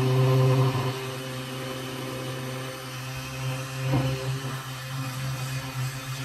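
Electric stick blender running steadily, its blade submerged in a bucket of cold process soap batter, mixing the oils and lye solution toward emulsion. It is a little louder for the first half second, then settles to an even hum.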